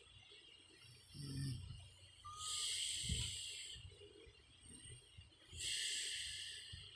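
Woman asleep, breathing heavily: a short low snore about a second in, then two long hissing breaths about three seconds apart.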